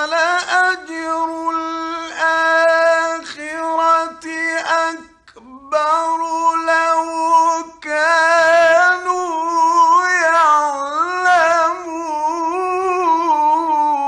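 Male Qur'an reciter chanting in the melodic tajweed style, drawing out long, high notes with ornamented wavering of pitch. The phrases break off briefly about five and about eight seconds in.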